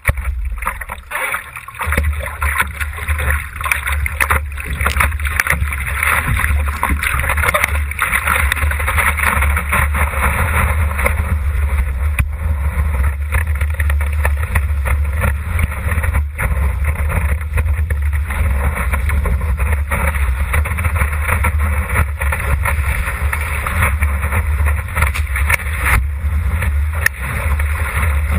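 Water rushing and splashing along a surfboard as it rides a wave, with a steady low wind rumble on the microphone.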